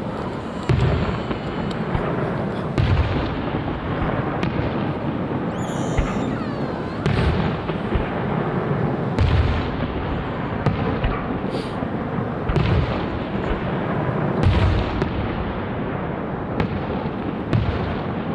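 Aerial fireworks shells bursting in rapid succession, a steady barrage of booms and crackling, with a short whistling glide about six seconds in.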